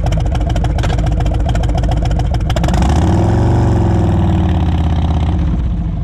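Harley-Davidson V-twin motorcycle engine idling with a fast, even beat, then revved once about halfway through, the pitch rising and falling back to idle.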